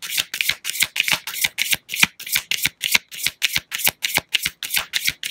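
A deck of tarot cards being shuffled by hand: a steady run of quick, crisp card slaps, about six a second, as the deck is mixed before a clarifying card is drawn.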